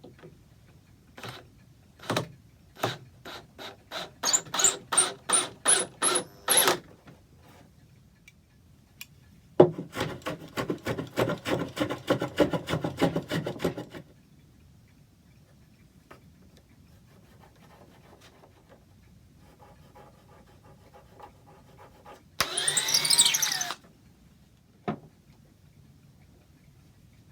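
A hand tool is worked back and forth on oak in two runs of rhythmic strokes, the second faster at about four strokes a second. Later comes one short whirr of a drill, about a second long, that rises and falls in pitch.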